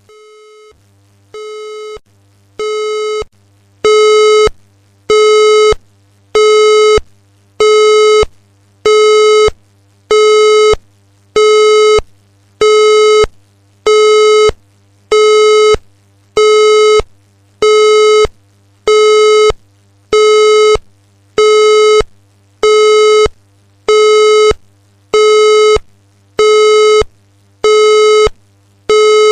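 Fire alarm sounder giving a repeated buzzy beep, about one beep every 1.3 seconds. The first few beeps start quiet and step up in loudness before the beeps settle at a steady full level.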